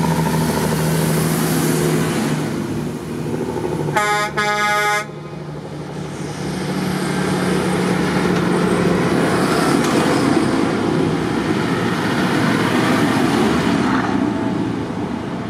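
Large farm tractors, a John Deere followed by a JCB Fastrac, driving past one after another, their engine and tyre noise rising and falling as each goes by. About four seconds in, a horn sounds two short toots.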